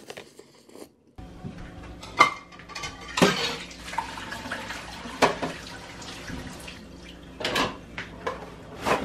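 Washing up at a stainless steel kitchen sink: dishes and cutlery clinking and knocking against each other and the sink over a steady rush of running tap water, starting about a second in.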